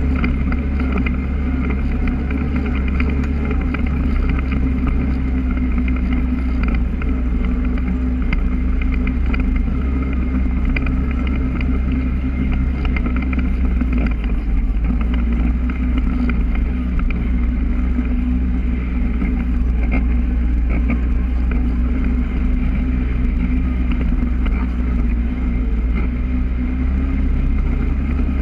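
Polaris ATV engine running steadily as the quad drives along, with no big revving.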